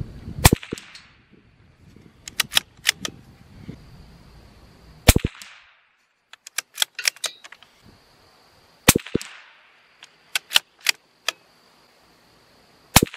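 Four shots from a CZ 457 bolt-action .22LR rifle firing Eley subsonic ammunition, each a few seconds apart with a short ring after it. Between shots come clusters of quick clicks as the bolt is worked.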